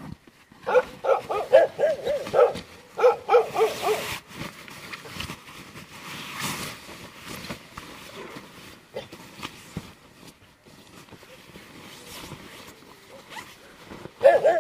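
Dogs barking: a rapid run of barks for about two seconds, a shorter run just after, and another bark near the end. In between there is a quieter rustle of the sleeping bag being handled.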